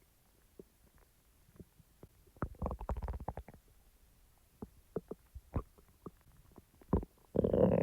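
Stomach growling and gurgling after eating. A gurgling rumble starts about two and a half seconds in and lasts about a second, followed by scattered short pops and squelches, then another burst near the end.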